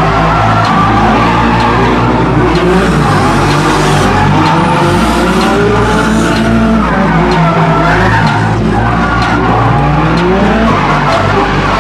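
Drift cars' engines revving up and down with tyres skidding and squealing, loud and continuous.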